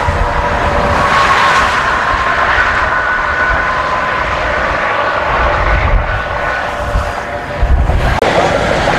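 Wind rushing over the microphone, with gusts buffeting it about six and eight seconds in. An outdoor warning siren wails faintly underneath, its tone drifting as it sounds under a mesocyclone.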